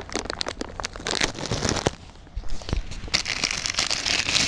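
Clear plastic accessory bag crinkling and crackling as it is handled and pulled open, in quick irregular crackles with a short lull about two seconds in.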